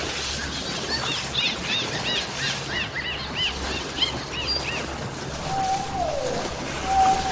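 Dolphin whistles: a run of short arching chirps, about three a second, then a lower held whistle that slides down in pitch, starting again near the end.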